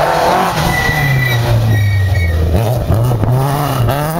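Rally car engine running hard as it passes close by. The note drops about a second in, then climbs again near the end as it pulls away through the bend.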